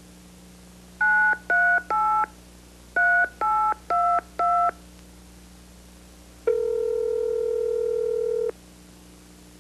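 Touch-tone telephone keypad dialing a seven-digit number: three short key tones, a brief pause, then four more. About two seconds later a single steady ring tone sounds on the line for about two seconds, the ringback of the called phone ringing. A faint steady hum runs beneath.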